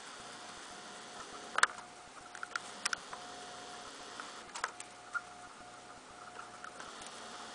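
Handling noise of a handheld camera: scattered sharp clicks and taps, the loudest about a second and a half in, over a faint steady hiss and a thin steady tone.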